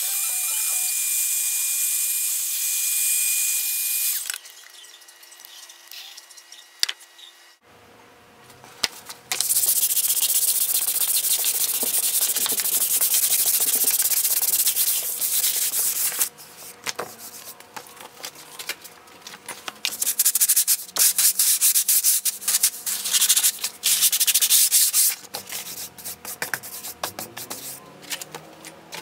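A heat gun blows with a steady hiss for about four seconds. After a short lull comes hand-sanding of the painted wooden sign: a long stretch of continuous scratchy rubbing, then shorter back-and-forth strokes that start and stop.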